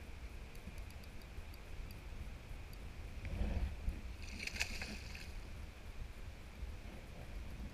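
A hooked steelhead splashing at the surface in shallow water by the bank, in a burst around the middle, over the steady rush of the river.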